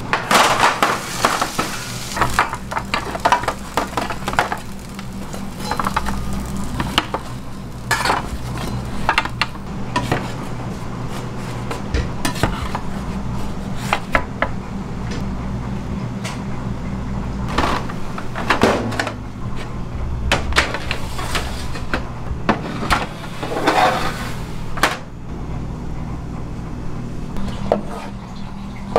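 Square steel Detroit-style pizza pans and metal utensils knocking and clattering as they are handled, with a metal ladle working in a pot of tomato sauce near the end. A steady low hum runs underneath.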